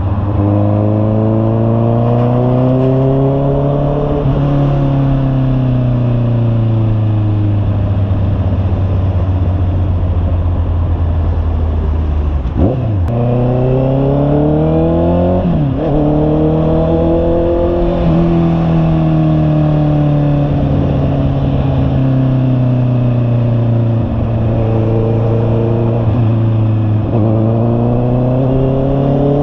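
Honda CB650R's inline-four engine running through an aftermarket 'imba pure' muffler while riding, rising and falling in pitch as the throttle is opened and eased off, with a few short breaks at gear changes.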